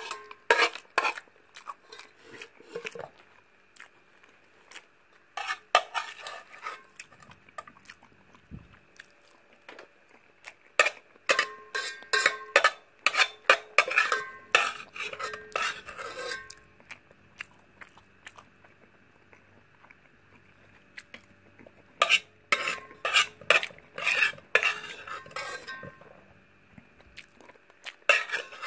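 Metal spoon scraping and clinking against the inside of a metal pot, scooping up the last of the noodles. It comes in bunches of a few seconds with quiet pauses between.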